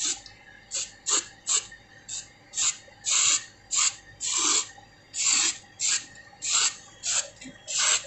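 Aerosol spray-paint can hissing in a rapid series of short squirts, about two a second, as black paint is sprayed over a refrigerator's corroded compressor pipes to protect them from further corrosion.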